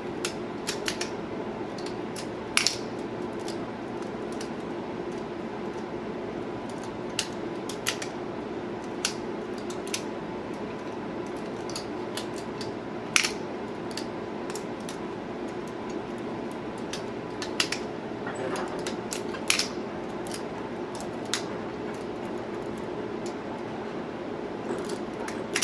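Balisong (butterfly knife) being flipped: sharp metallic clicks at irregular intervals as the handles swing and strike, over a steady background hum.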